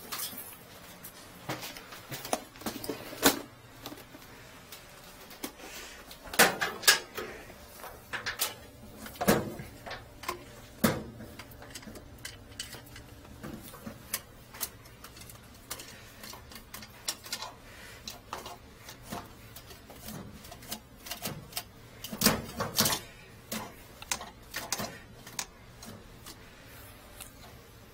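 Irregular knocks, clicks and clatter of equipment being handled: an aluminium equipment case holding a pipe-inspection camera is opened and the camera's yellow push cable drawn out. The loudest clatter comes in two clusters, about a quarter of the way in and again about four-fifths of the way through.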